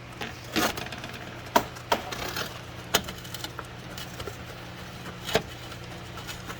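Scattered sharp metallic clinks and knocks of hand tools and sockets against metal parts as a 10 mm bracket bolt on a car's transmission lines is worked loose, over a steady low hum.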